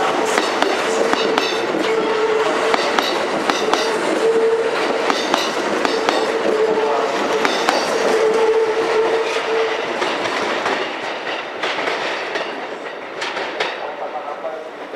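Kintetsu electric train running through the station's pointwork, its wheels clacking over the rail joints and switches, with a steady tone held until about ten seconds in. The train grows fainter over the last few seconds.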